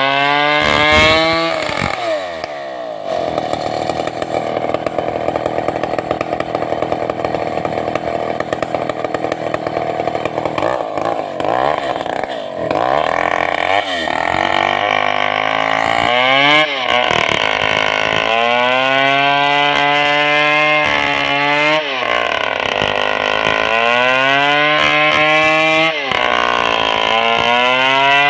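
Large 070 two-stroke chainsaw ripping a red sengon log lengthwise. The engine holds a fairly steady high pitch under load for the first half, then revs up and drops back again and again through the second half.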